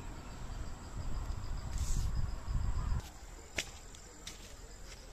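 Wind buffeting the phone's microphone as a low rumble for about three seconds, then cutting off. A faint, rapid insect trill continues with a few sharp clicks.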